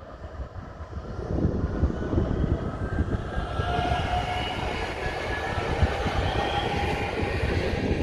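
Electric multiple-unit passenger train passing on a nearby track: a rumble of wheels on rails that builds about a second in and stays loud, with a whine held over it through the middle.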